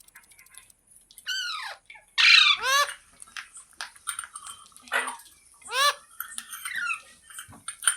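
Green parrot giving a series of short, harsh screeching calls, each rising and falling in pitch; the loudest come about two seconds in, with more every second or so near the end.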